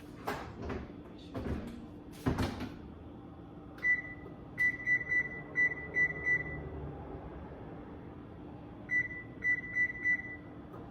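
Electronic oven control panel beeping as buttons are pressed to set the preheat temperature: a quick run of about seven short beeps, then four more near the end. A few low knocks come first.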